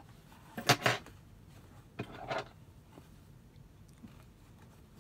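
Small scissors snipping thread tails at the sewing machine after a seam: a pair of sharp snips about a second in, and another couple of short snips around two seconds in.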